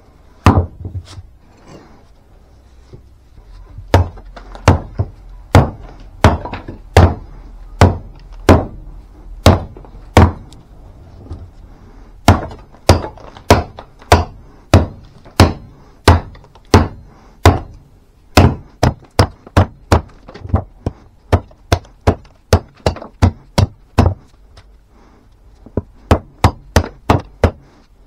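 Kings County camp axe chopping into a hard, knotty log for kindling: a long run of sharp wooden chops, at first about one every three-quarters of a second, quickening after the middle, with a few short pauses.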